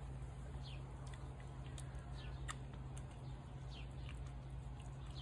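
A tabby cat eating shredded wet cat food from a plate, with soft chewing clicks. Faint short falling chirps come every second or so over a steady low hum.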